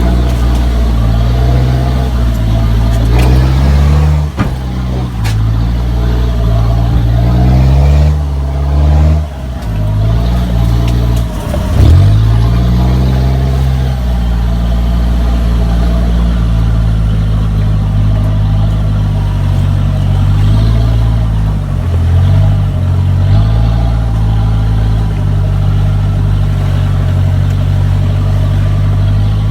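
Kia Sportage's engine pulling the SUV over rough off-road ground, its note rising and falling as the throttle changes, then settling into a steadier drone after about halfway. A few sharp knocks cut in early and again about twelve seconds in.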